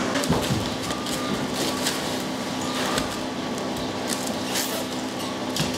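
Rustling and crinkling of plastic and cardboard in short scrapes every second or so, as a boxed printer is packed and wrapped in plastic stretch film, over a steady hum.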